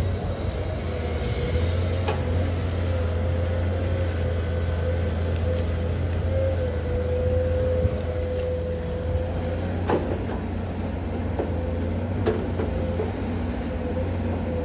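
Komatsu PC210 hydraulic excavator working: its diesel engine runs steadily under a deep hum, with a wavering whine over it, and three sharp knocks come spread through as the arm and bucket dig and dump.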